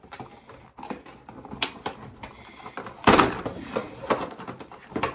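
Plastic toy pieces and cardboard packaging being handled: scattered clicks and rustling, with a louder clatter about three seconds in.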